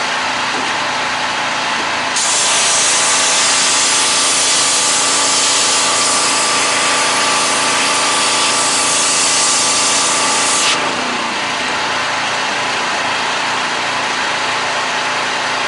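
Gas pressure washer engine running steadily. About two seconds in the trigger is pulled and the high-pressure jet hisses for about nine seconds, then stops while the engine keeps running.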